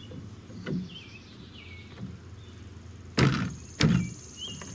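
Two dull knocks about half a second apart, typical of a white PVC cap being pressed and tapped down onto the end of a PVC pipe light by hand, with birds chirping.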